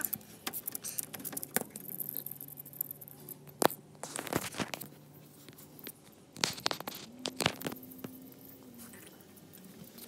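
Handling noise from an old door-popper solenoid and its wires being pulled out of a truck door: scattered clicks, small knocks and rustling, with one sharp click a little over three and a half seconds in.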